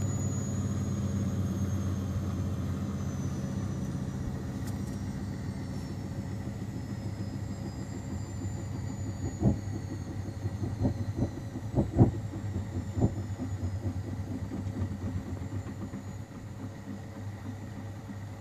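Miele Softtronic W 2557 washing machine spinning down: a steady low rumble with a faint high motor whine that slowly falls in pitch as the drum slows, and the whole sound gradually gets quieter. A few sharp knocks come about halfway through. The spin fell short of 1600 rpm because of an unbalanced load.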